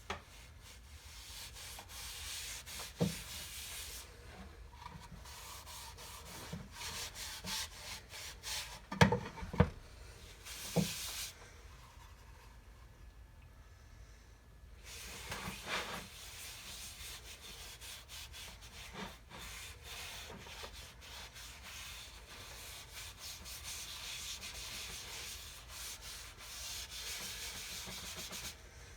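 Steady rubbing on a wooden board by hand, in long stretches, with a few short knocks, the loudest a little past a third of the way through.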